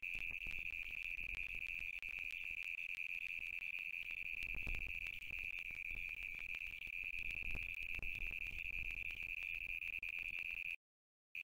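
A steady high-pitched whine holding one pitch, with faint low rumbles beneath it. It cuts out completely for about half a second near the end.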